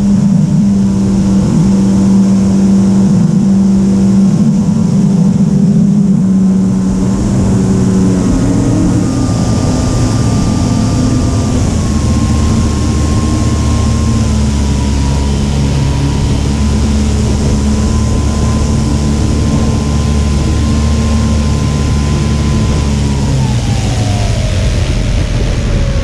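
Sebart RC aerobatic airplane's motor running in flight, with a steady airy hiss. Its pitch steps up and down with the throttle, and a higher whine slides down near the end.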